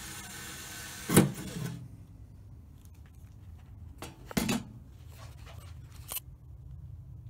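A hand drill running briefly against the steel lid of a pellet grill and stopping about two seconds in, with a sharp knock just before it stops. Then two more knocks and lighter clicks of tools being handled on the metal.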